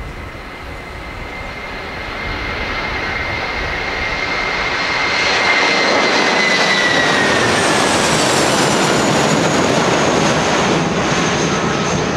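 Boeing 757 freighter's twin turbofan engines at takeoff thrust as it lifts off and climbs out. A steady jet noise grows louder over the first five seconds or so, then holds. A high whine drops in pitch about seven seconds in as the aircraft passes.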